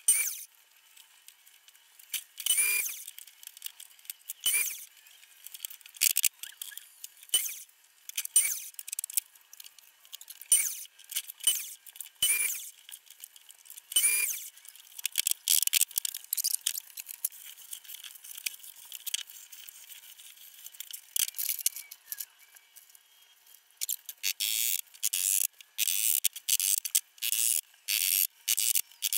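Workshop handling noises: separate sharp knocks and clinks every second or two, some with a brief ring, as wood and tools are moved about on a bench, then a quick run of rapid strokes in the last few seconds.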